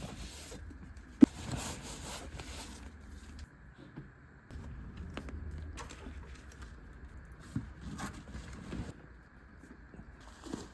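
Faint background with a low rumble and scattered small clicks and knocks, including one sharp snap about a second in.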